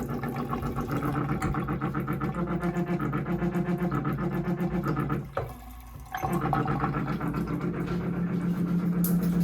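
Hot-water supply at a bathroom fixture vibrating hard, a steady buzzing hum with rapid even pulsing, set off by water running from an outside hose bib on the cold side. It stops for about a second some five seconds in, then starts again. The plumber suspects a cross connection, or a loose part.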